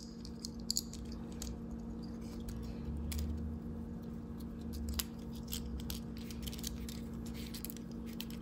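Scattered small clicks and light handling noise as fingers work the mainspring out of an Atmos 528 mainspring barrel, over a steady low hum.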